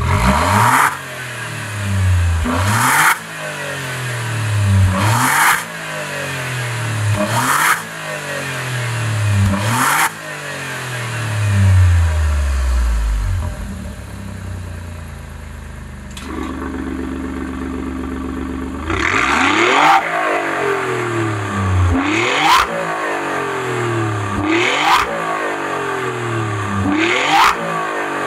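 Alfa Romeo Giulia Quadrifoglio's 2.9 twin-turbo V6 through a Ragazzon stainless-steel sport exhaust with electric valves, revving up again and again. Each climb in pitch ends in a sharp crack as the revs drop. In the middle the revs fall away to a few seconds of steady idle before the climbs resume.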